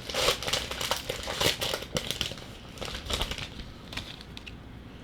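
Crinkling and rustling of trading-card pack wrappers and cards being handled, busiest in the first three seconds and tapering off near the end.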